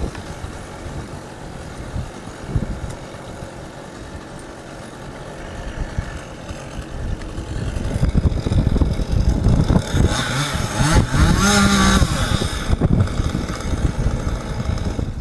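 Two-stroke chainsaw running in the treetop. It grows louder about eight seconds in and revs up to a high, held pitch for a couple of seconds before easing off.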